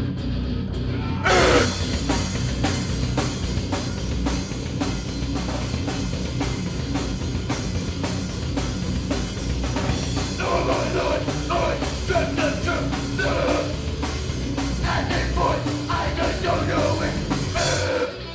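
Rock band playing live with drum kit, electric guitar and bass; the full band comes in loud about a second in, with steady drum hits, and stops briefly just before the end.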